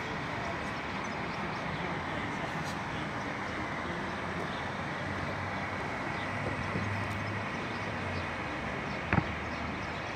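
Steady rushing outdoor background noise, with a sharp click about nine seconds in.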